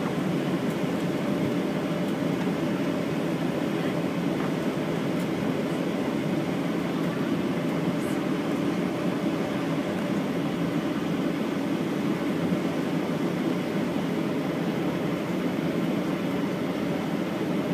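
Steady low rumble inside the cabin of a Boeing 737-900ER, from its CFM56-7B jet engines and cabin air, holding at an even level without rising.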